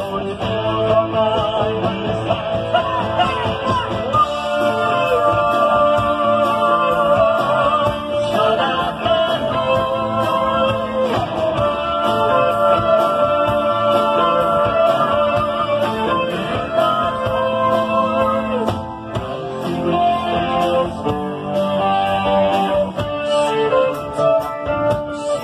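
Live rock band playing through a PA: a woman sings over electric guitars and a drum kit with a steady cymbal beat.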